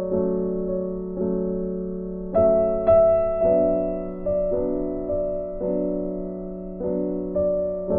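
Background music: slow, gentle piano chords, a new chord struck about every second and left to fade.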